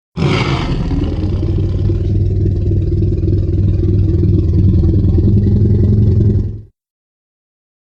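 Tyrannosaurus rex sound effect: a long, low, rumbling growl that starts abruptly, holds steady for about six and a half seconds, then fades out.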